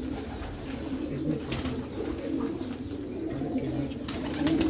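Domestic pigeons cooing repeatedly, low and warbling.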